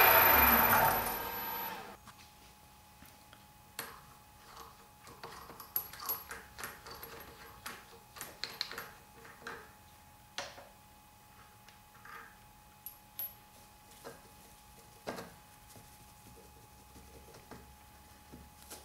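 Milling machine spindle with a fly cutter running down and falling silent over the first two seconds. Then scattered light clicks and knocks as the yellow plastic gears are handled and taken off the dividing head.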